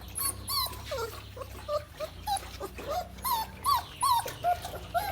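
Young American Akita puppies whimpering: a quick run of short, high whines, each rising and then falling in pitch.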